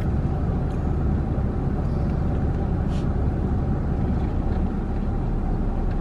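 Steady low rumble of a car's running engine heard from inside the cabin.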